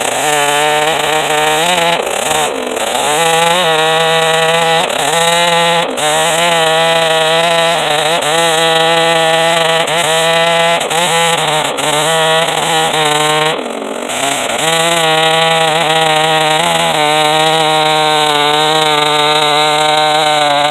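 Farmertec 660 two-stroke chainsaw ripping along a red oak log, running hard under load. Its pitch sags and recovers over and over as the chain bites, with short dips about two, six and fourteen seconds in.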